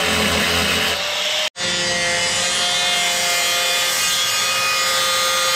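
Angle grinder cutting into a steel jeep bumper: a loud, steady grinding hiss with a high whine. It cuts out for an instant about a second and a half in, then runs on.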